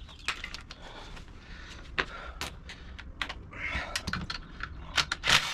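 Irregular metallic clicks and clinks of a socket wrench and hand tools working the 17 mm seat-belt anchor bolt, with a louder run of clicks near the end.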